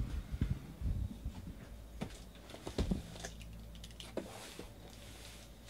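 A cardboard shipping case being handled on a table, with dull thumps and bumps, then clicks and a light scraping as a pocket knife is worked along the taped seam to slit it open.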